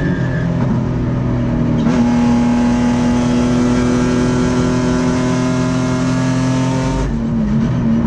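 Race car's V6 engine heard from inside the cockpit, running hard at high revs. It is unsettled for the first couple of seconds, then holds a steady high note under throttle, and drops off sharply as the driver lifts about seven seconds in.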